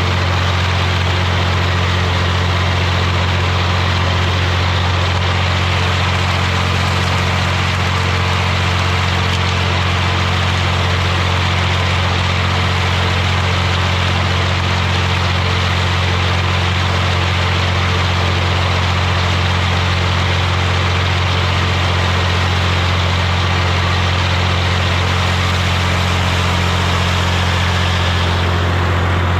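Tractor engine running at a steady speed with a constant low hum.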